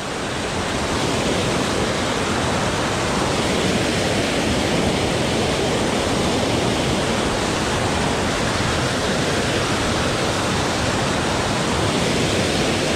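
Steady rushing of a small waterfall and whitewater cascading over rocks into a river pool.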